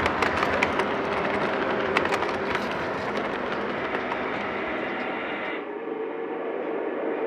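O gauge model freight train rolling past on its track: a steady rolling rumble of the wheels with sharp clicks during the first two and a half seconds. About five and a half seconds in the sound cuts abruptly to a thinner, steadier hum with a low steady tone.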